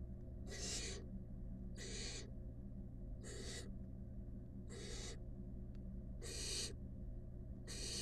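Barn owl nestlings giving rasping hiss calls, a short breathy hiss about every second and a half, six in all, over a steady low hum. These repeated hissing 'snores' are the food-begging call of barn owl chicks.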